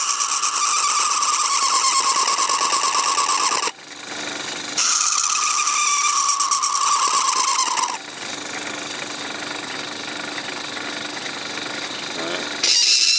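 A hand-held hobby knife blade scraping against a plastic chimney blank spinning in a metalwork lathe. The blade vibrates on the plastic with a buzzing squeal that sags slightly in pitch, in two long bouts. Between them and after them there is quieter running noise, and the squeal starts again near the end.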